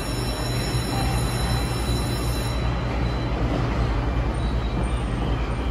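Steady low humming drone of a JR East E657 series electric train standing at the platform with its onboard equipment running.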